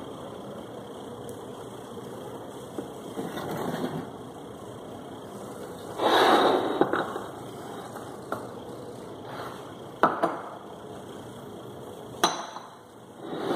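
Ceramic coffee cups being set down on saucers and moved on a counter: a loud scrape about six seconds in, then sharp clinks twice a few seconds later, over steady background noise.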